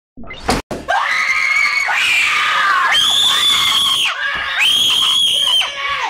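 People screaming loudly in fright, with long, high, held screams in the middle and near the end. A sharp knock comes just before, about half a second in.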